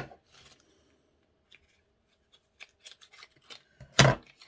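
Handling noise from a lipstick and its small cardboard box: faint clicks and rubbing as the lipstick is slid out, then a brief, louder scuff about four seconds in as the metal lipstick case is handled.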